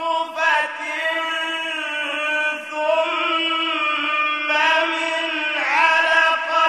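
A man's solo voice reciting the Quran in a slow, melodic chant, drawing each syllable out into long held notes that bend and ornament in pitch, with a short breath near the start.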